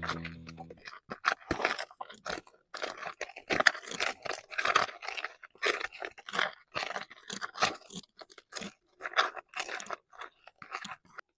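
A run of irregular close-up crunches, a few every second, after the background music ends within the first second.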